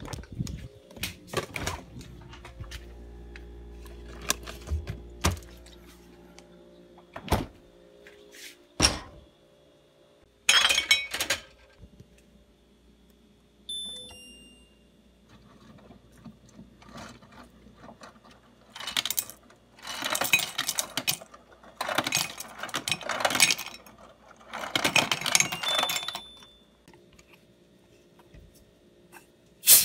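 An ice-making water purifier beeps at the press of its ice button, then drops ice cubes into a glass mug in four clattering bursts over about seven seconds. Scattered knocks and handling thumps come before.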